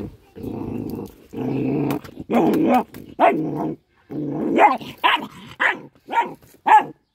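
Small dog growling in long rumbles, then breaking into a quick run of short, sharp barks from about two seconds in.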